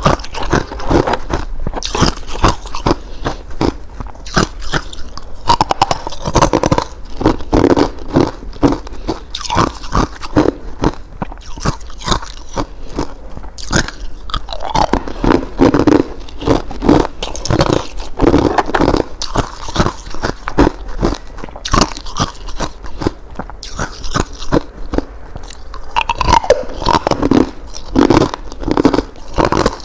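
Ice being bitten and chewed close to the microphone: a dense, irregular run of loud crunches and cracking as the pieces break between the teeth.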